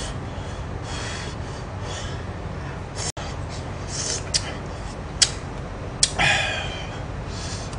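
Close-up eating sounds of spicy tteokbokki: chewing and slurping of rice cakes in sauce, with sharp hissing breaths and a few sharp clicks.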